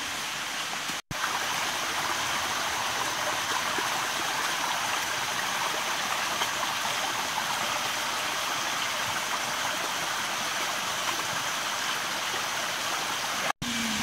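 Steady rush of a small forest stream running over rocks. The sound cuts out briefly twice, about a second in and near the end.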